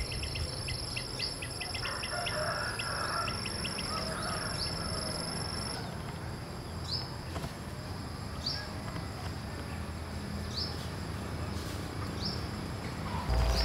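Orchard ambience: a steady high-pitched insect drone, with a second, higher drone that stops about six seconds in, and a run of quick ticks in the first few seconds. A bird gives short rising chirps every second or two.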